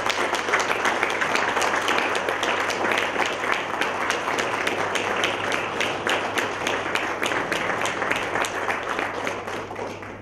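Audience applauding, a dense, even clapping that dies away near the end.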